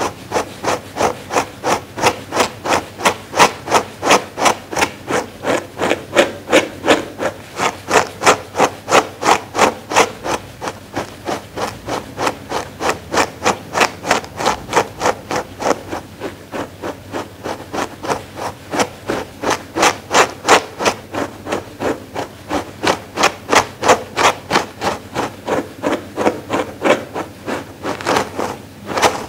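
Grooming brush drawn over a fleece pad in quick, even strokes, a dry scratchy brushing at about two to three strokes a second.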